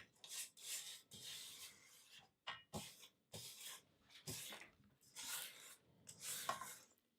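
Spatula scraping cookie dough from the sides and bottom of a stand mixer's mixing bowl: a series of about a dozen short, faint rubbing strokes with brief pauses between them.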